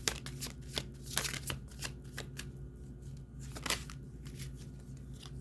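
Tarot cards being shuffled and handled: a run of irregular crisp clicks and snaps, thickest in the first two seconds and again about two-thirds of the way through.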